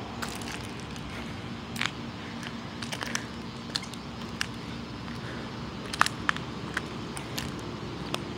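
Outdoor street ambience: a steady low hum under scattered crackling clicks of footsteps on dry leaf litter and grass.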